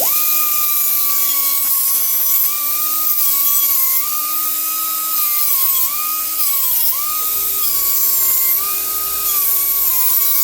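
Handheld power grinder running at high speed as its wheel grinds the edge of a steel lawnmower blade, a loud steady whine. Its pitch sags briefly several times as the wheel is pressed into the metal, then recovers.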